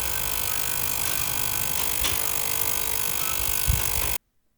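Ultrasonic cleaner running: a steady buzzing hum with several fixed tones, which stops abruptly near the end.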